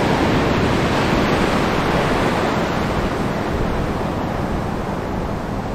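Heavy sea surf and strong wind buffeting the microphone: a steady, even rush of noise with a strong low rumble, easing slightly toward the end.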